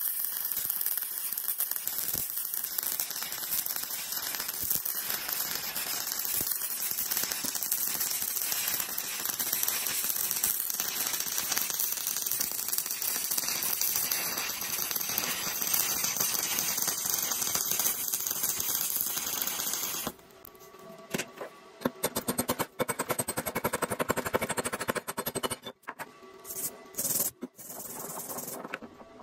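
Stick-welding arc of a 2.5 mm E6013 electrode at 85 amps, a steady dense crackle and sizzle. About twenty seconds in it stops abruptly, and a run of sharp, irregular taps and scrapes follows as the slag is worked off the weld bead.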